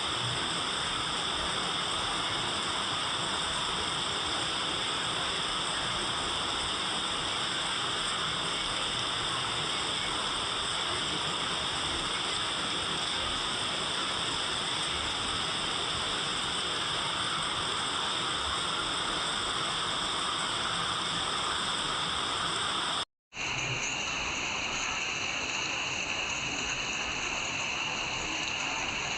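Steady, constant rain. It cuts out abruptly for a split second about 23 s in, then carries on with a slightly different tone.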